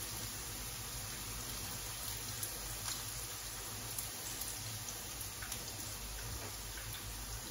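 Sigara böreği pastries frying in hot oil in a pan: a steady sizzle with scattered small pops and crackles.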